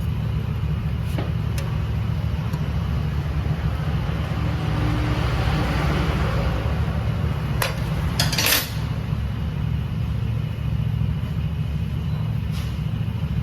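SYM Mii 110 scooter's small single-cylinder engine idling steadily, with a few sharp clicks and a short clatter about eight seconds in.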